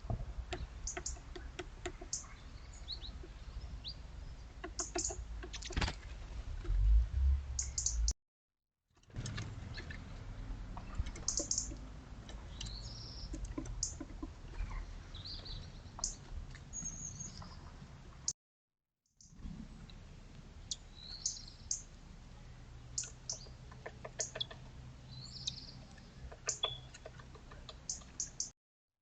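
Small garden birds giving short, high chirps and calls over a low outdoor rumble that is loudest about seven seconds in. The sound cuts to silence briefly twice.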